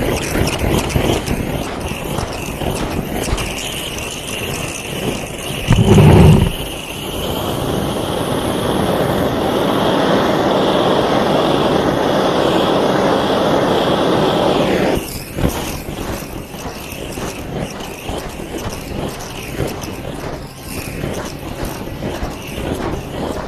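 Handheld gas blowtorch hissing steadily for about eight seconds as it caramelizes the crust on a cup of flaming coffee, then shut off suddenly. A short, loud low thump comes just before the torch starts.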